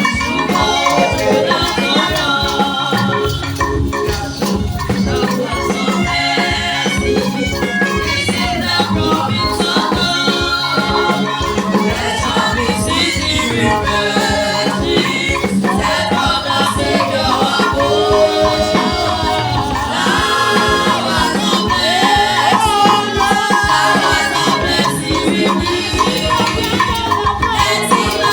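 Praise music: voices singing over a band, with a shaker rattling and a steady beat.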